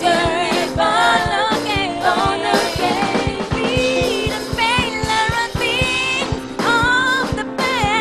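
Live gospel praise music: singers performing over a band with a steady drum beat and held chords.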